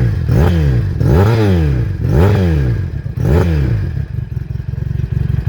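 400cc twin-cylinder motorcycle engine revved through its exhaust in four quick throttle blips, each rising and falling in pitch. It settles back to a steady idle about four seconds in.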